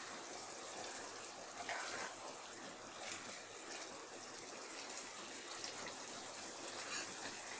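Thick prawn and potato curry simmering in a nonstick wok, a soft steady bubbling sizzle as the gravy cooks down, with a spoon scraping through it a few times in the first half.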